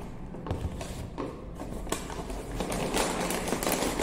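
Brown paper takeaway bag rustling and crinkling as plastic food containers are pulled out of it. A few light knocks come from the containers being handled and set down.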